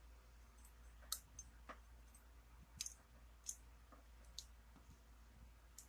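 A handful of faint, sharp clicks and taps of small metal lock parts being handled as the lock is taken apart.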